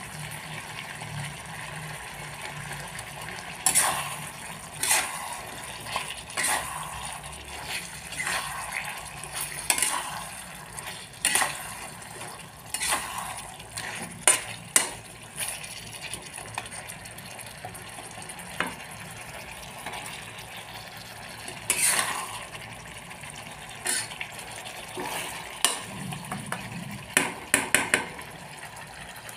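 Flat metal spatula scraping and stirring chicken curry in a wok, in sharp irregular strokes about every second or two with a quick run of scrapes near the end, over a steady sizzle of the masala frying.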